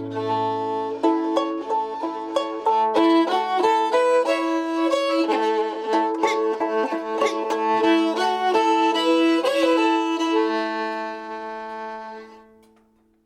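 Fiddle and banjo playing the closing bars of a string-band tune, ending on a held final chord that fades away just before the end.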